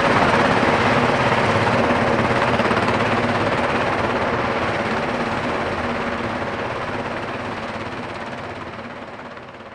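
Boeing CH-47 Chinook tandem-rotor helicopter lifting off and climbing, its rotors beating with a rapid, even chop. It is loudest at first and fades steadily.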